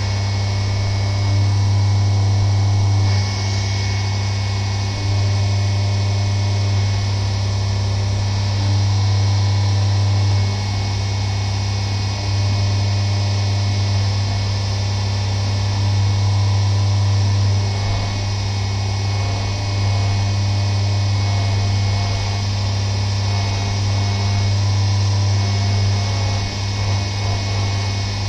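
CNC vertical mill machining a metal block under flood coolant: a steady low hum from the spindle and cut, with a hiss of coolant spray above it. The level dips and rises a little every few seconds as the tool moves through its passes.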